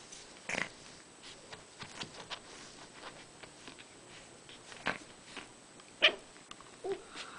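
Chihuahua puppies play-fighting: soft scuffling with a few short, sharp puppy cries, the loudest about six seconds in.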